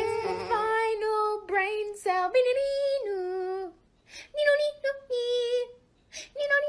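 A high voice singing a melody of held notes that step up and down in pitch, in short phrases with brief pauses between them.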